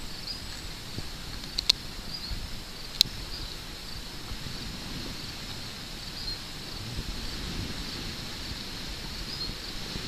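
Outdoor weedy-field ambience: insects, crickets by their sound, chirping steadily and high-pitched, over a low rumble of wind on the microphone. Two sharp clicks stand out, just under two seconds in and again about a second later.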